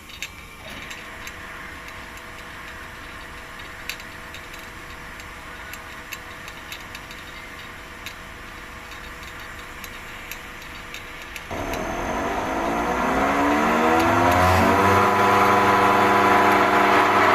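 York YCIV chiller's variable-speed screw compressor starting up about eleven seconds in: its whine rises in pitch over about three seconds, then holds steady and loud. Before that, a faint steady hum with scattered ticks. The compressor's running noise is abnormal, the sign of the fault being traced.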